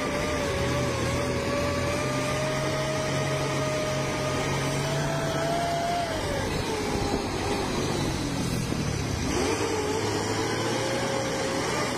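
Heavy intercity buses running hard at speed, their engine and drivetrain giving a steady whine over road and wind noise. The whine drops away about six seconds in as the revs fall, then climbs again near the end.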